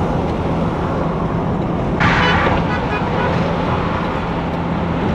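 Steady road noise of a car travelling on a highway, with a low engine hum and a brief louder swell about two seconds in.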